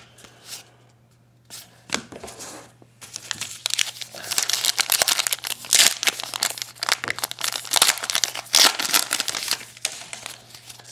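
Wrapper of a 2012 Topps Heritage baseball card pack being torn open and crinkled by hand. A few light clicks come first, then a dense run of crackling starts about three seconds in and eases off near the end as the cards come out.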